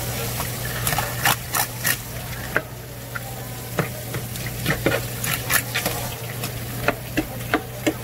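Knife working on fish on a cutting board: irregular sharp clicks and scrapes, over a steady low hum.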